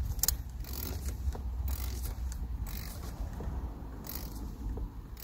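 Wrench working the nuts on a pickup truck's brake master cylinder: scattered metallic clicks and scrapes, irregularly spaced, over a steady low rumble.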